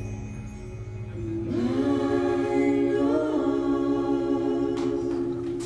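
A small vocal group sings the final chord of a song in harmony, entering about a second and a half in and holding it steadily to its close.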